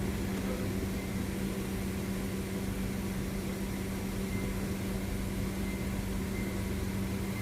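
Steady low machine hum: one constant tone with its overtones, even in level throughout.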